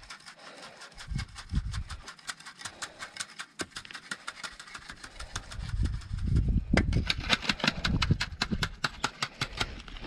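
A small engine running, with a steady rapid ticking at about six ticks a second; low rumbling joins in from about six seconds in.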